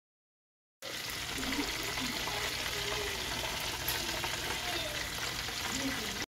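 Hot oil sizzling and crackling in a frying pan as food fries, a steady dense hiss with fine pops. It starts abruptly about a second in and cuts off sharply just before the end.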